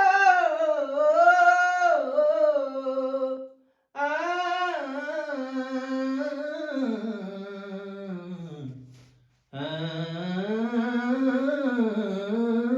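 A solo voice singing long, wordless held notes that glide up and down, in three phrases broken by two short pauses for breath; the middle phrase sinks steadily lower in pitch.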